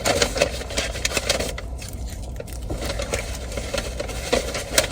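Rustling and crinkling of a fast-food bag and packaging being handled, with many irregular small clicks over a steady low hum.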